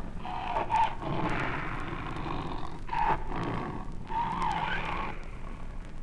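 Siberian tiger growling and snarling over its meat at feeding time, warning off the keeper. The sound is rough and harsh, with snarls about half a second in, at about three seconds, and again around four to five seconds.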